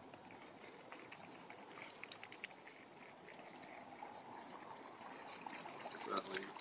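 Water poured from plastic bottles onto dry ice in a cardboard canister, trickling and fizzing as the dry ice sublimates into fog. A brief, louder crackle comes near the end.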